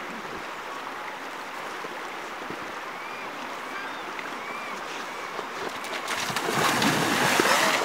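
Steady rush of a shallow salmon stream. About six seconds in, a brown bear charges through the water, and loud splashing takes over.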